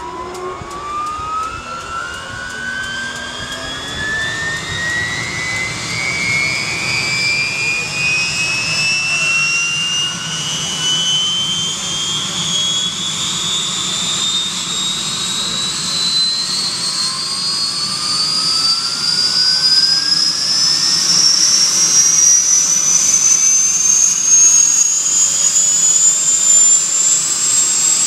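Bell UH-1 Huey's Lycoming T53 turboshaft engine spooling up during start: a high turbine whine climbing smoothly and steadily in pitch and growing louder, over a low rumble, as the main rotor begins to turn.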